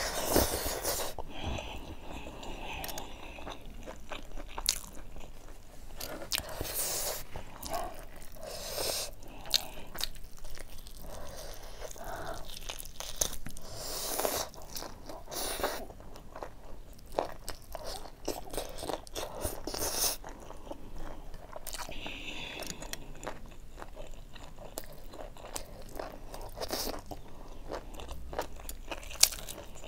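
Close-up eating: a person chewing big hand-fed mouthfuls of rice and buffalo meat curry, with irregular mouth clicks and smacks throughout.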